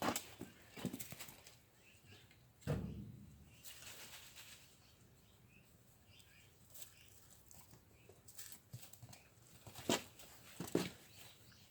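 A ball being batted back and forth with a cat on the floor: scattered soft taps and knocks, with one louder thump about three seconds in that dies away as the ball rolls, and two sharp taps near the end.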